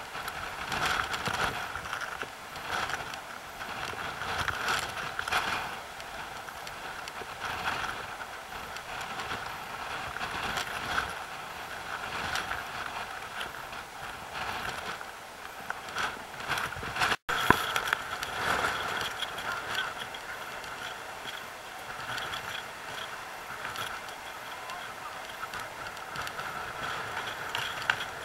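Sea surf washing and breaking over rocks: a continuous rushing with repeated surges, cut off for an instant about two-thirds of the way through.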